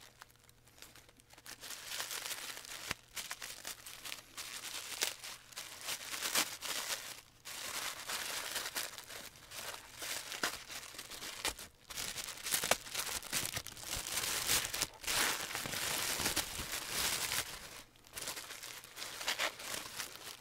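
Paper gift wrapping being handled and pulled apart, crinkling and tearing in irregular bursts; it starts about two seconds in, with a few short pauses.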